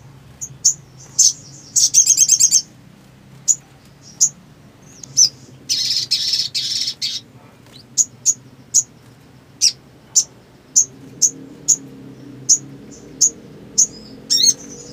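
Sogon (sogok ontong) calling: sharp, high single chips repeated every half second or so, with a quick rattling trill about two seconds in, a longer harsh buzzy burst around six seconds in, and a fast rising chatter near the end.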